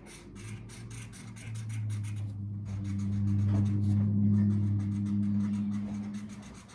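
Felt-tip marker scribbling on cardboard in quick, repeated strokes as a check mark is coloured in. A low, steady hum of unknown source swells up under it, is loudest midway and fades out near the end.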